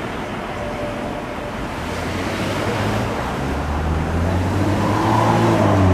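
Outdoor traffic noise, with a motor vehicle's engine hum building from about two seconds in and getting louder toward the end as it draws closer.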